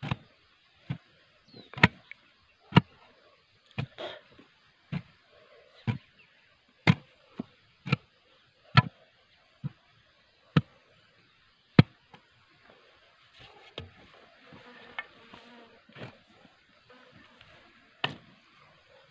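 Hoe blade chopping into packed red earth, a sharp thud roughly once a second for about twelve seconds, then a few more widely spaced strikes. An insect buzzes faintly between the later strokes.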